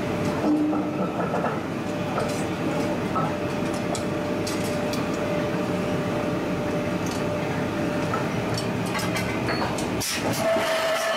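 Steady din of forge-shop machinery running, with a constant hum, and a few light metallic clinks as tongs handle the hot steel workpiece.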